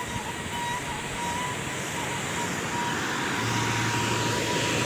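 Waterfall rushing: a steady, even roar of falling water that grows gradually louder.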